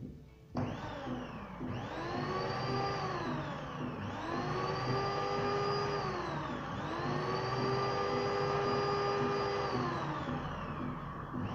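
An electric blender's motor starts about half a second in and runs with a high whine that speeds up, holds, and slows again about four times in a row. It is being test-run after a loose electrical contact in its plug and switch was repaired.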